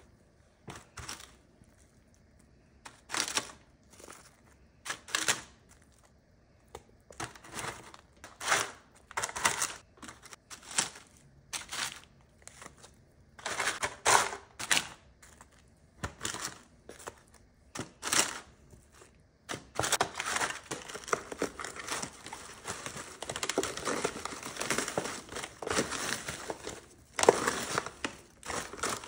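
Raw chicken wings set down one at a time onto a foil pan heaped with crisp snack chips, each landing giving a short crackle of chips and foil. About two-thirds of the way in, hands start crushing and mixing the chips: a continuous run of crunching and crinkling.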